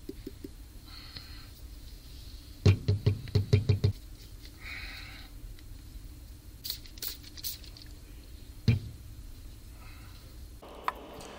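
Small objects being handled on a workbench: a quick run of knocks and clicks about three seconds in, a few lighter clicks later and a single knock near the nine-second mark, as a plastic bottle and jar are set down and a small plastic fan rotor is handled.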